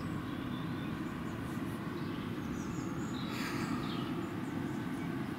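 Outdoor background: a steady low rumble, with a few faint bird chirps about three seconds in.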